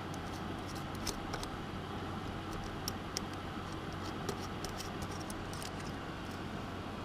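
Light, scattered metallic clicks and ticks of small nuts being fitted by hand onto the jack sockets of a modular mixer's panel, over a steady background hiss and hum.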